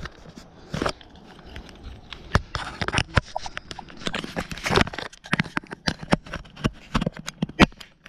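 A hand handling an action camera and its mount right at the microphone: irregular clicks, taps and rubbing, the clicks coming thicker and faster in the second half.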